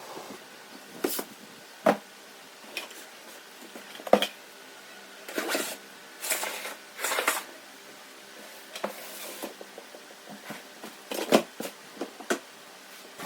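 Plywood boards and furniture being handled and set in place: several sharp wooden knocks at irregular intervals, with short stretches of scraping and shuffling in between.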